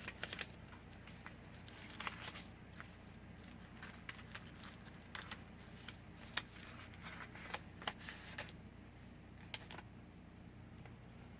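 Paper and cardstock being handled: faint scattered rustles and small taps over a low steady room hum.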